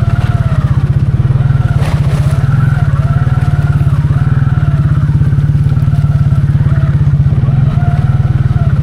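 Can-Am 700 XMR ATV engine running steadily as it is ridden, an even low exhaust pulse with a fainter wavering whine over it. A short knock about two seconds in.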